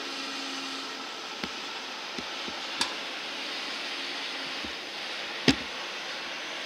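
Steady rolling noise of a Deutsche Bahn ICE high-speed train moving slowly past, broken by a few short, sharp knocks; the loudest comes about five and a half seconds in.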